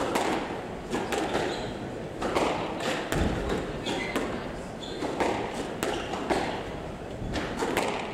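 Squash rally: the ball cracking off racquets and the walls in a steady exchange, about one hit a second, ringing in the glass-walled court, with short squeaks of shoes on the hardwood floor.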